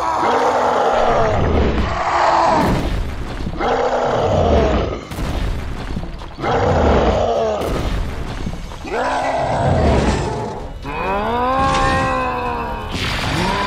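Cartoon sound effects: a series of loud, rough roars, each with a deep boom under it and a falling pitch, repeating about every two to three seconds. Near the end a different pitched cry rises and falls, then a steady held tone begins.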